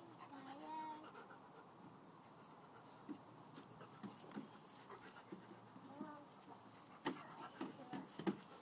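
A Northern Inuit puppy and an Alaskan malamute playing, quietly: panting and a few short whines, with scattered scuffles and knocks that come thicker near the end.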